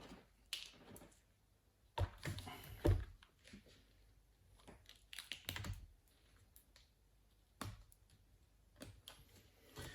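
Laptop screen parts being handled: scattered light plastic clicks, taps and rustles, busiest about two to three seconds in.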